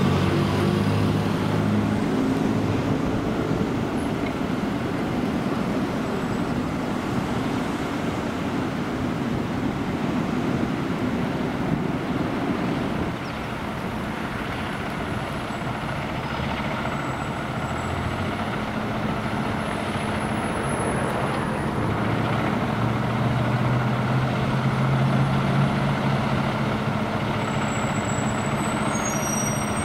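Fire engine's diesel engine running steadily as the apparatus idles in the station bay and pulls out, its low engine note growing stronger about two-thirds of the way through. A few short high squeaks come near the end.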